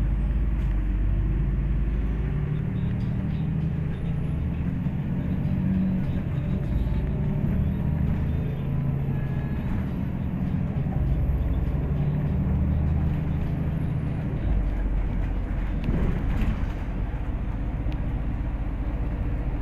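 Inside a MAZ-203 city bus on the move: the diesel engine and drivetrain running with road rumble, the engine note changing pitch a few times. A short knock or rattle comes about three-quarters of the way through.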